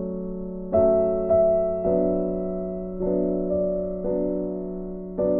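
Background music: slow, gentle piano chords struck roughly once a second, each fading before the next, over a held low note.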